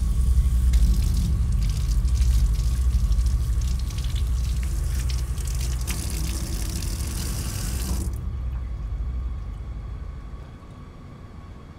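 Water running from a wall-mounted sensor tap into a sink as hands are rubbed under it, cutting off suddenly about eight seconds in. A low rumbling drone runs underneath and fades away near the end.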